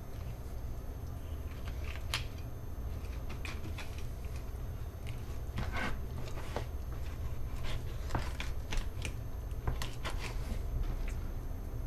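Fillet knife cutting through a snapper's flesh and rib bones on a plastic cutting board: a run of irregular small crunches and clicks, more of them in the second half, over a steady low hum.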